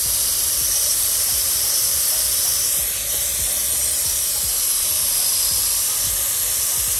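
Garden hose watering wand set to mist, spraying steadily into straw mulch at the base of a plant: an even, unbroken hiss of water spray.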